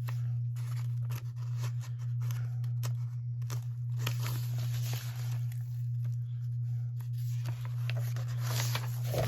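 Sheets of old paper being handled and shuffled, giving irregular rustles and crinkles, over a steady low hum.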